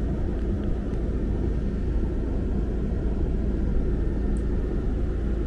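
Parked car's engine idling, a steady low rumble heard from inside the cabin.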